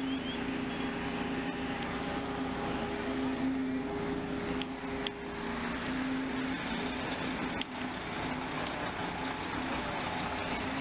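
Fire engines running at the scene, a steady engine drone with a constant hum, and a couple of brief clicks about halfway through.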